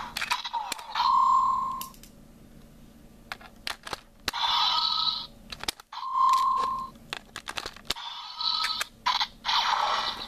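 Sharp plastic clicks from a Ranger Key being folded and fitted into a toy Super Sentai changer, mixed with short electronic beeps and bursts of sound effects from the toy's speaker.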